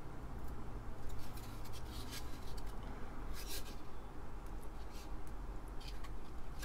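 Handling noise of circuit boards: a few light clicks and scrapes as a Raspberry Pi is pressed onto its header and standoffs on the PiDP-11 front-panel board, over a steady low hum.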